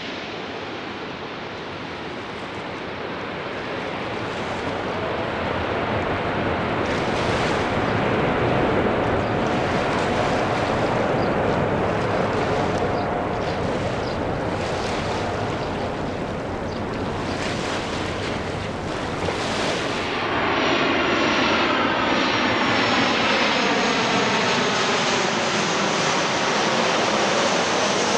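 Airbus A350-900 jet engines running as it lands and rolls out on the runway, with a dense roar that swells and surges for the first twenty seconds or so. After a sudden change about twenty seconds in, a Boeing 737-800 passes low overhead on final approach with a steady high-pitched fan whine over its roar.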